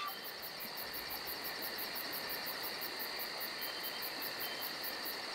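Night marsh ambience: insects chirping in a fast, even pulse of about six a second over a steady high drone, with a light hiss beneath.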